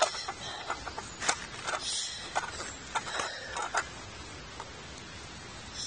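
Close handling of small camping gear or packaging by hand: a quick series of clicks, crackles and rustles that stops about four seconds in.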